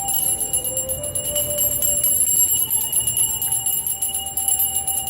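A Salvation Army kettle bell rung without pause: a steady, high metallic ringing made of rapid, even strokes.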